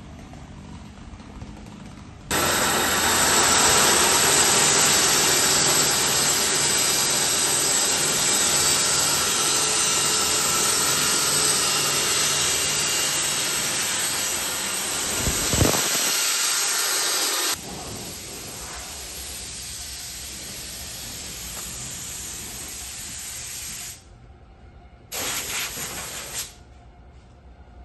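Woodworking power machinery running with an even rushing noise. It starts suddenly about two seconds in, drops sharply to a lower level past the middle, and comes back for a short loud burst near the end.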